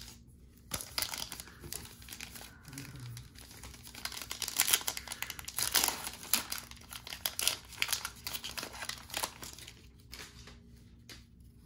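A Topps baseball card pack's wrapper being torn open and crinkled by hand: a run of crackles and rips that starts about a second in and is loudest around five to six seconds in.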